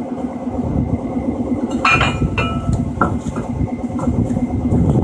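Steady machine hum with a few short metallic clinks about two, two and a half, three and four seconds in.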